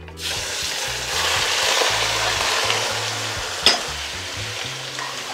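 Seasoned pork pieces hitting hot oil and caramelised brown sugar in a metal pot, setting off a loud sizzle that starts suddenly and slowly eases as the meat begins to brown. A single sharp clink comes about three and a half seconds in.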